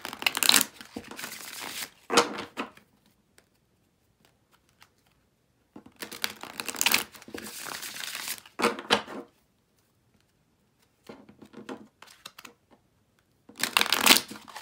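A deck of tarot cards being riffle-shuffled and bridged by hand: rapid crackling flutters of the cards interleaving, in three main rounds of about two seconds each with short pauses between, and a fainter round between the second and third.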